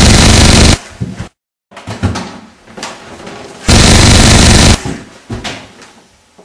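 Two bursts of automatic gunfire, each about a second long and distorted from being so loud. The first cuts off just under a second in and the second starts about four seconds in, with a few scattered knocks between them.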